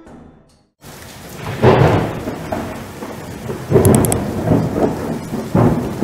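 Thunderstorm: steady heavy rain with three loud rolls of thunder about two seconds apart, starting just under a second in after a tail of music fades out.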